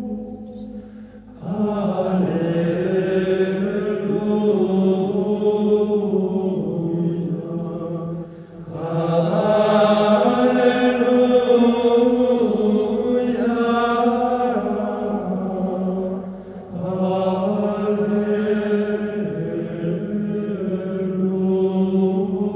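Background music of slow vocal chant, sung in long held phrases over a steady low tone, with short breaks between phrases about 1.5, 8.5 and 16.5 seconds in.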